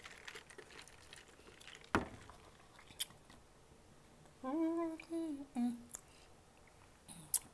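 A woman's closed-mouth "mmm" hum, about a second long around the middle, with a shorter one just after. A few soft clicks come before it, as food and packaging are handled.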